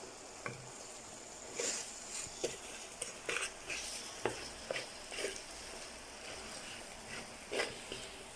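A spoon stirring onions cooked down with butter and oil in a large frying pan: irregular scrapes and light clacks against the pan over a faint steady sizzle.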